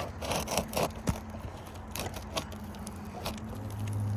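Metal roof snake clicking and scraping under three-tab asphalt shingles as it works at a roofing nail, in a string of short clicks and crackles, over a low steady hum that grows louder near the end.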